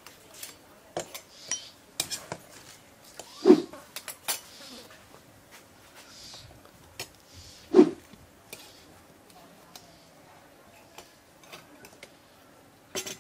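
Eating at the table: scattered clinks, taps and scrapes of dishes and cutlery, with two louder short sounds about four seconds apart.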